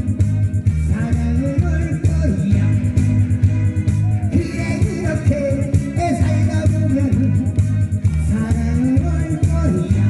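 A man sings into a microphone over a loud amplified backing track with a steady bass line.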